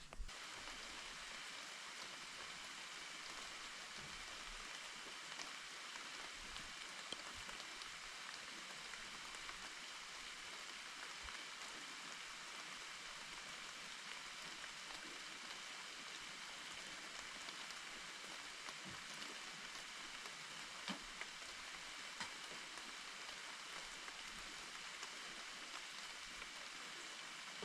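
A steady, even watery hiss with a few faint scattered ticks, like light rain falling.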